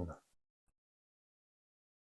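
Near silence: the gated audio drops to dead quiet after the last of a spoken word, with one faint tick.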